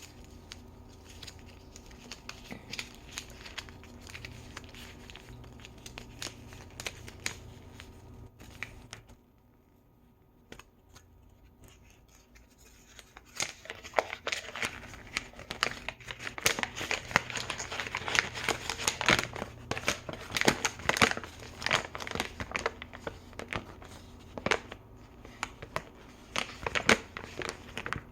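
Small toy packaging, plastic and paper, crinkling and tearing in the hands during an unboxing. It is light and scattered at first, almost stops for a few seconds, then goes on denser from about halfway through.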